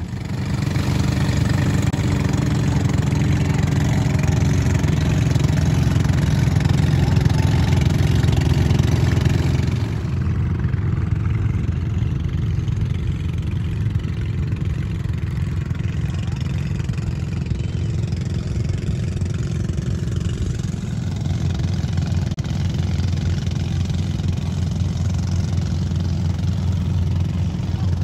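A small engine running steadily close by. It is loudest for about the first ten seconds, then settles a little quieter at a steady low pitch.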